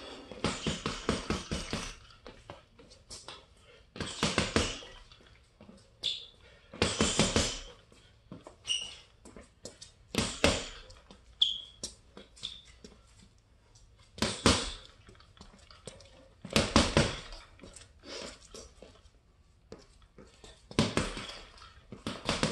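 Boxing gloves punching a hanging heavy bag in quick combinations: about seven flurries of rapid hits, each a second or two long, with short pauses between them.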